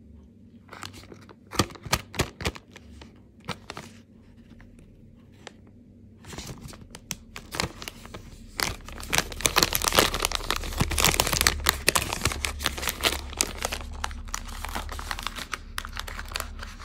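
Plastic chocolate-bar wrapper crinkling as hands handle and fold it: a few sharp crackles in the first seconds, then continuous crinkling from about six seconds in, loudest around ten to twelve seconds.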